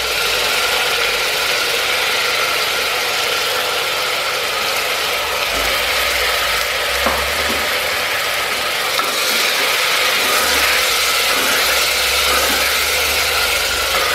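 Chopped tomatoes sizzling steadily in hot oil in a pressure cooker, with a spatula stirring and scraping through them and a single sharp click about halfway through.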